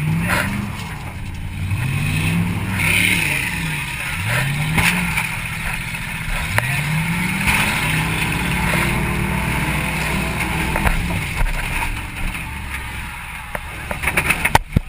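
A 1994 Mercury Grand Marquis's 4.6-litre V8 revving repeatedly in rising surges, with one longer pull held through the middle before it falls away, heard from inside the stripped cabin. Near the end, a cluster of sharp bangs.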